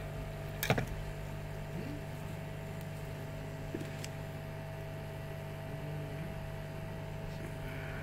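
Steady electrical hum from workbench equipment, with a sharp click just under a second in and a faint tick about four seconds in.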